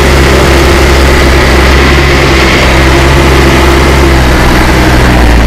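Truck engine running steadily on the move, heard loud and close from on board, with a low steady hum over constant road and wind noise.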